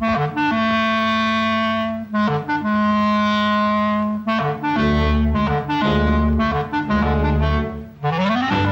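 Clarinet solo from a studio orchestra soundtrack, a slow piping tune. It plays two long held notes, then shorter notes over low bass notes, and ends with a quick rising run.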